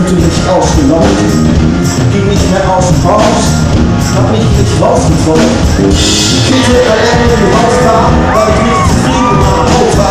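Live band playing loud, with a man singing lead into a handheld microphone over drums and electric guitar.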